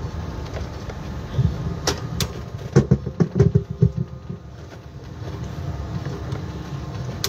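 Low rumble of a vehicle driving on a road, with a couple of sharp clicks about two seconds in and a cluster of loud knocks and rattles about three seconds in.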